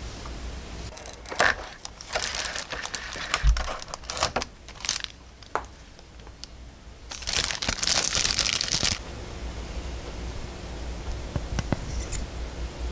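Thin clear plastic bag crinkling and rustling in irregular bursts as hands work a clear round figure base out of it, with a soft thump about three and a half seconds in and a few light clicks near the end.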